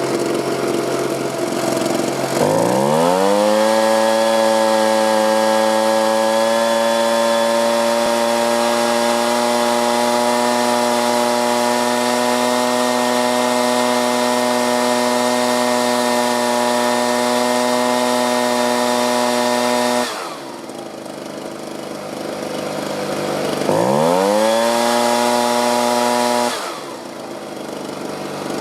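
Two-stroke leaf blower engine, fitted with a new aftermarket carburetor that has just been tuned, idling and then revved quickly to full throttle, held steady for about seventeen seconds, snapped back to idle, then given a second short rev of about three seconds. It picks up cleanly and holds speed evenly, the sign of a carburetor running right.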